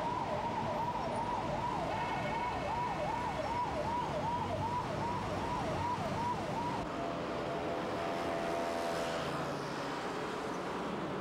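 Emergency-vehicle siren in street traffic, its pitch sweeping quickly up and down about two and a half times a second. About seven seconds in the sweeping stops, and a steady tone holds for a couple of seconds over the constant traffic noise.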